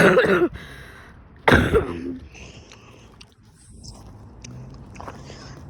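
A boy coughing twice, loud and short, about a second and a half apart.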